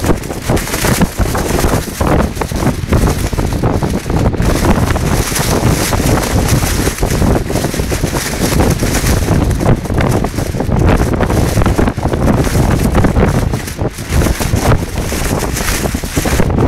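Storm wind blasting the microphone, with a plastic poncho flapping and crackling in the gusts.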